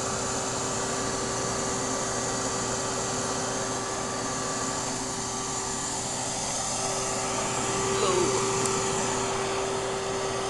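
Steady motor drone of a bee vacuum running, a shop-vac pulling honeybees into its bucket, with a steady hum and no break; briefly louder about eight seconds in.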